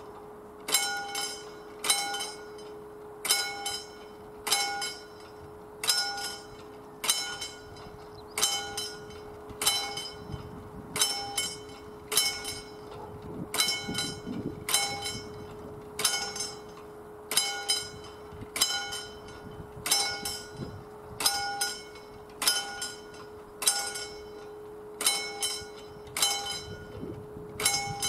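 Level crossing warning bell striking at a slow, even pace, about one stroke every 1.2 seconds, each stroke ringing on, over a faint steady hum.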